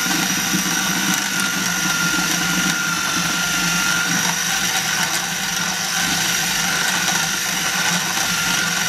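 KitchenAid KFP1333 13-cup food processor running steadily on high, a motor hum with a steady whine, as its dough blade kneads bread dough that is gathering into a ball.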